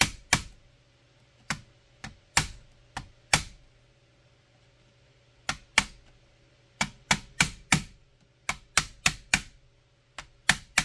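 Sharp metal-on-metal taps on the end of a screwdriver held against the tab of a stainless submersible well pump's wire guard, driving the tab back down. About eighteen taps come in small bursts of two to five with short pauses between, each ringing briefly.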